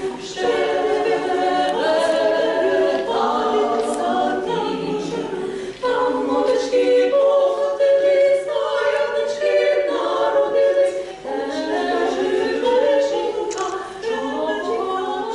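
An a cappella choir singing a song in several voice parts with long held notes, pausing briefly between phrases.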